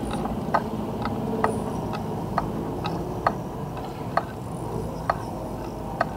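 Regular mechanical ticking, about two ticks a second, over a low steady hum.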